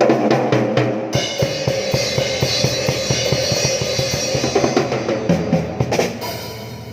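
Drum kit playing a fast run of drum hits, with cymbals crashing in about a second in and the playing stopping about six seconds in.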